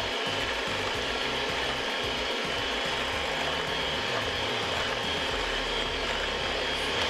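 Cuisinart electric hand mixer running at a steady speed, its beaters whipping eggs and maple syrup in a glass bowl, with a constant high motor whine.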